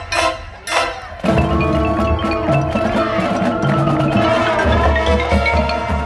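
Marching band playing: a short passage of repeated percussion strokes, then about a second in the full band comes in with held chords over low drum hits.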